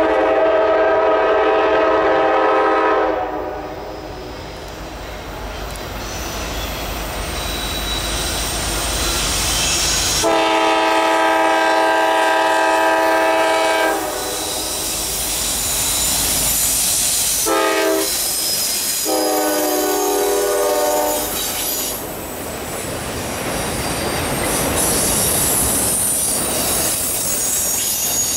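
A GE Dash 9-40CW freight locomotive's air horn sounds a long, a long, a short and a long blast, the standard grade-crossing signal. Then the train's autorack cars roll past with wheels clattering over the rail and a high wheel squeal over the last few seconds.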